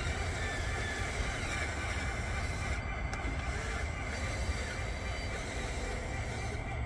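Radio-controlled model bulldozer running, its electric drive motors and gears giving a steady mechanical whirr and rattle as it pushes sand.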